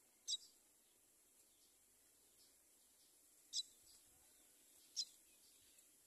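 Myna nestlings begging in the nest: three short, high chirps, the first just after the start and two more in the second half, with quiet between them.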